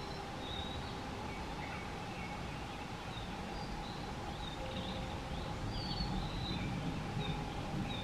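Small songbirds giving many short, high chirps and calls, scattered and overlapping, over a steady faint tone and a low rumbling noise that grows a little louder in the second half.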